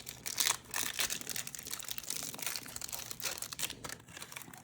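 Crinkling and rustling from a foil trading-card pack and its cards being handled, busiest in the first couple of seconds and thinning out near the end.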